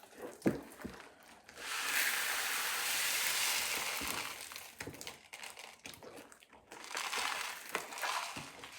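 Crinkling, rustling handling noise with a few small clicks, coming in two stretches: clear-glue slime being worked by hand on a plastic tabletop while it sticks to the surface.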